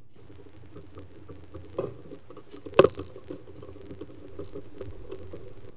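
Phillips screwdriver turning out the cover screws of a Bosch GWS 20-230 H angle grinder: a rapid run of small clicks and scrapes of the screw in the plastic housing, with two sharp clicks a second apart, the louder near the middle.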